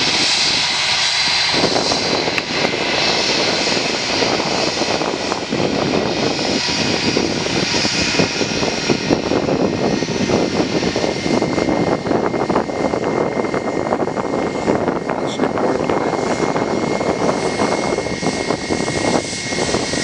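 Airbus A320 jet engines running with a steady, noisy roar that grows fuller about a second and a half in; a thin steady whine joins in the second half.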